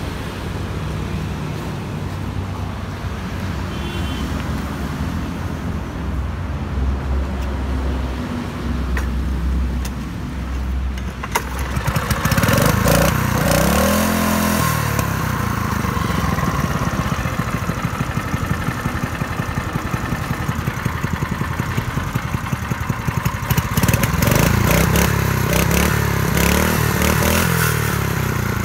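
Used Kubota GS160 single-cylinder petrol engine test-running: a steady low hum, then about eleven seconds in a sharp click and the engine runs louder, its pitch rising and falling for a few seconds as it is revved, then running steadily.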